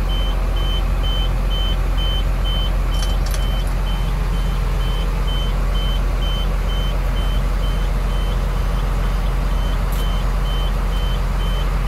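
The Ford F800's 5.9-litre six-cylinder diesel idling steadily, heard from inside the cab, with a warning beeper sounding about twice a second throughout. A few sharp clicks from the dash controls come a few seconds in and again near the end.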